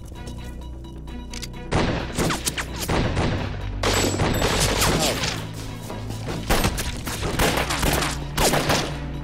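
Gunfire in a shootout: rapid volleys of gunshots start about two seconds in and go on, with a brief break, until near the end, over background music.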